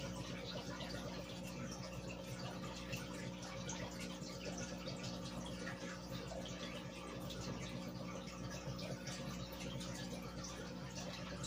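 Aquarium air bubbling: a stream of fine air bubbles from an air-driven sponge filter rising and popping at the water surface, a steady fizzing trickle of tiny pops over a steady low hum.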